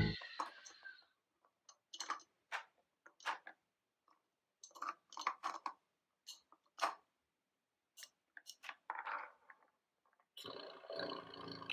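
Small plastic toy vehicles and play-set pieces being handled: scattered light clicks and taps, with a short rustling scrape near the end.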